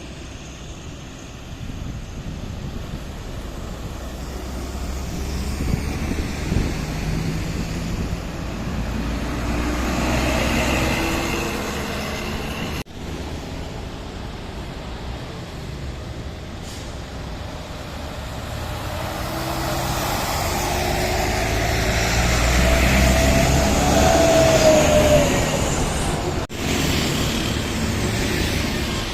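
Heavy vehicles driving past one after another, with engine rumble and tyre noise swelling and fading as each passes and a short whine during the loudest pass. The sound breaks off sharply twice.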